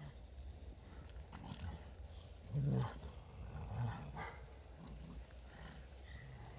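Dogs growling in rough play: short low growls, the loudest about two and a half seconds in and another about a second later.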